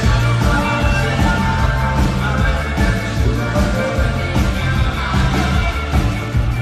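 Live pop-rock band playing amplified through a PA, with singing over it.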